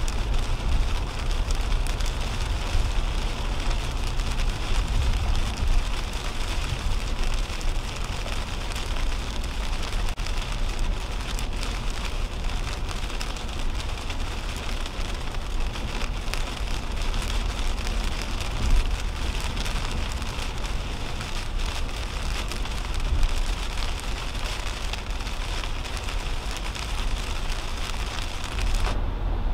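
Heavy rain hitting a 2010 Toyota Camry's windshield and roof, heard inside the cabin as a dense patter of drop impacts over a steady low rumble of tyres on the wet highway. Near the end the patter cuts out briefly as the car passes under an overpass.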